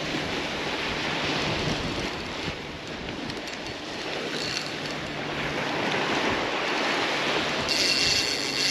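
Surf washing onto the beach in a steady rush, with wind on the microphone.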